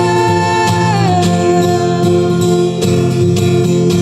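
Music: a singer holds a long sung note that steps down to a lower held note about a second in, over guitar accompaniment.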